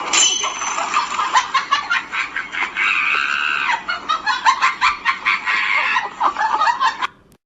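Many animals calling over one another in a dense, continuous chatter of short calls, which cuts off suddenly about seven seconds in.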